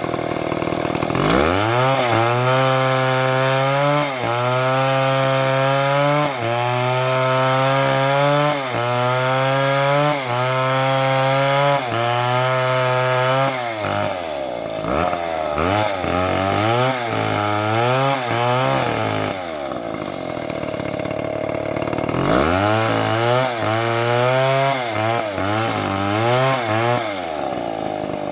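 Stihl MS720 chainsaw cutting wood at high revs, its engine note sagging and recovering about every two seconds. Around the middle it revs up and down in quick blips and briefly drops away, then goes back to the same sagging, recovering note near the end.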